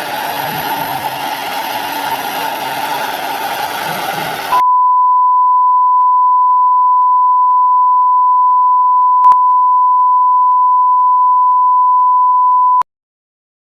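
A turbine-powered RC scale helicopter running, a steady rushing noise with a thin high whine. About four and a half seconds in it cuts off abruptly to a loud, steady single-pitch electronic beep. The beep holds for about eight seconds and then stops suddenly.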